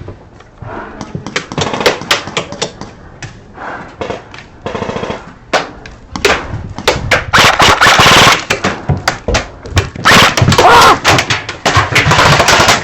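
Airsoft guns firing, single shots and rapid bursts of sharp pops, sparse at first and thickening into near-continuous fire in the second half.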